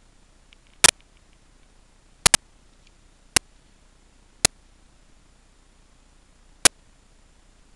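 Five sharp clicks at uneven intervals, some of them doubled, over a faint steady hiss.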